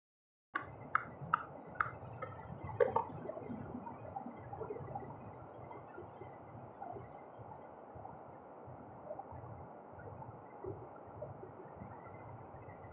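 A quick run of five sharp clicks and taps over about two seconds, hard shell on rock as small rock oysters are handled and picked, then a low steady rush with faint scattered ticks.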